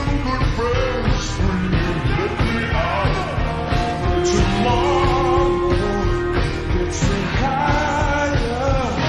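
Rock music with a singing voice over a steady bass and drum backing.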